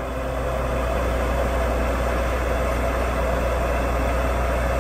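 Engine on a spray foam insulation rig truck running steadily, an even low drone that does not change.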